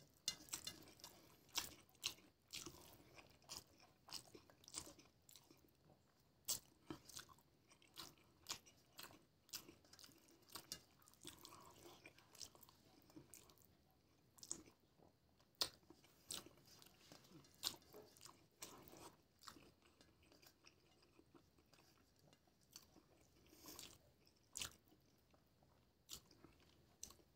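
Close-miked eating by hand: rice mixed with egg curry is squished by fingers against a stainless steel plate and chewed. The result is soft, irregular wet clicks and smacks, about one or two a second.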